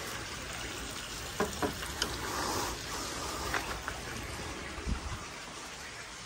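A steady watery hiss, with a few light clicks and taps beginning about a second in and a short louder hiss just after two seconds.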